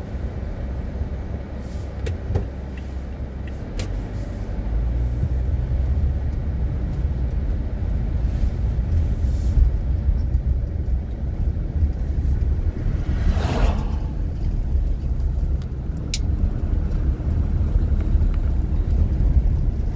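Car road noise and engine rumble heard from inside the cabin while driving, getting louder as the car pulls away from a stop a few seconds in. About two-thirds of the way through, a brief rush as an oncoming truck passes.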